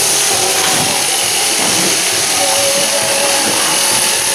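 Several machine sheep-shearing handpieces running at once as they cut through fleece, a steady, unbroken buzzing hiss.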